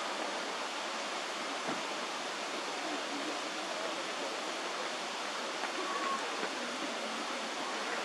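Steady rush of running water from a stream or small cascade.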